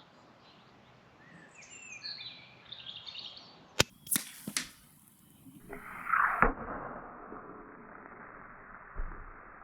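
AirMaks Katran PCP air rifle firing a sharp shot about four seconds in, followed at once by the cracks of the JSB Ultra Shock pellet striking a shaken can of fizzy drink. The punctured can then sprays out with a hiss that swells and cuts off abruptly. Birds chirp before the shot.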